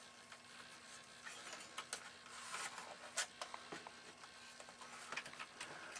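Faint handling noise of wires being tucked into a small box on a nitro RC car: scattered light clicks and rustling, with one sharper click about three seconds in.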